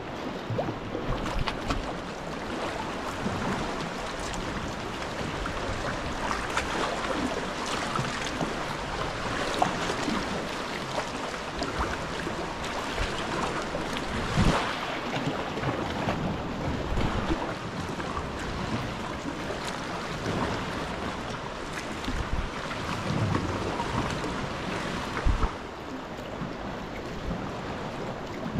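Sea water lapping and splashing against the rock walls around a sea kayak, a steady wash with a few louder splashes.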